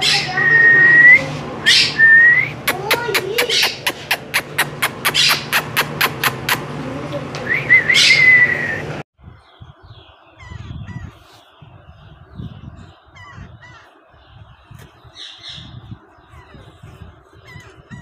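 A green parrot makes a fast run of sharp clicks and three loud upward-gliding whistles. About nine seconds in, the sound cuts to much quieter faint peeps from nestling parrot chicks, with soft bumps.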